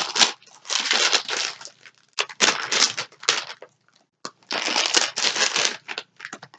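A blind-bag packet crinkling and rustling as it is handled and torn open by hand, in several irregular bursts with short pauses between them.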